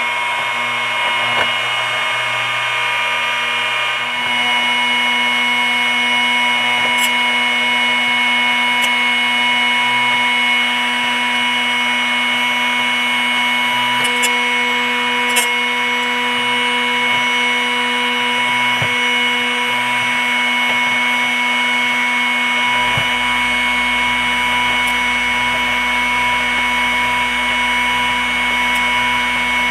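Drill Doctor XPK drill bit sharpener's motor and grinding wheel running with a steady hum while a drill bit is turned against the wheel in its chuck, with a few faint clicks. The bit makes only light contact with the wheel. About 23 s in, a lower hum joins the sound.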